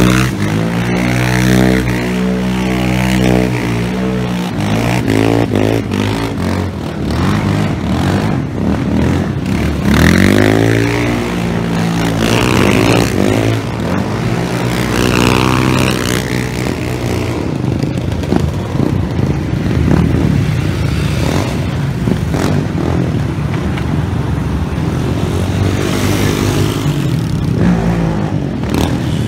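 Yamaha Raptor 700 quad's single-cylinder four-stroke engine revving hard in repeated rising and falling sweeps as it is spun in tight turns on asphalt, with other ATV and motorcycle engines running in the background.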